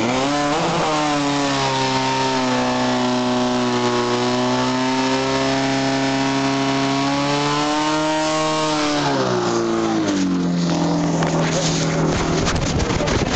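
Portable fire pump's engine revved up in the first second and held at high, steady revs while it drives water through the hoses, then throttled back about nine seconds in to a lower steady speed.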